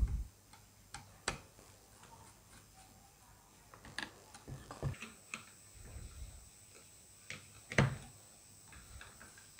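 Scattered light clicks and knocks of metal clamps and fittings being handled on a transformer mount, with the loudest knock near the end.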